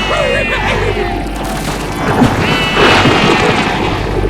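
A cartoon soundtrack run through layered pitch-shift and distortion effects: several copies of the same voice-like sounds at different pitches wobble over one another in a dense, noisy mix.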